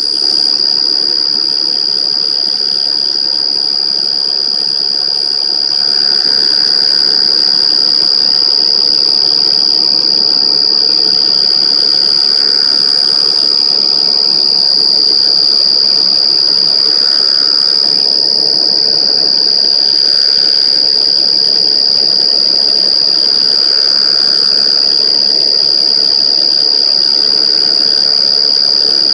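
Insect call: one loud, unbroken, high-pitched shrill tone, steady in pitch, that gets slightly louder about six seconds in.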